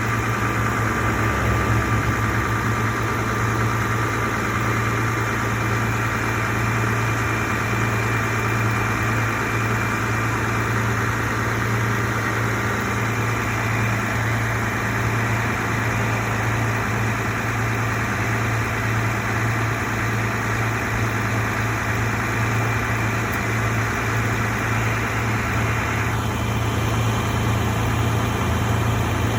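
A vehicle engine idling steadily with a constant low hum. A higher hiss in the sound drops away near the end.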